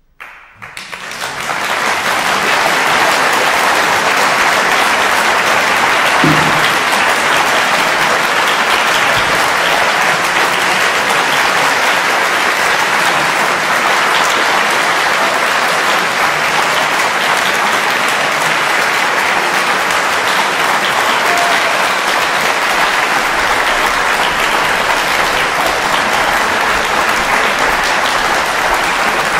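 Concert audience applauding, breaking out suddenly after silence and building within a couple of seconds to steady, sustained clapping.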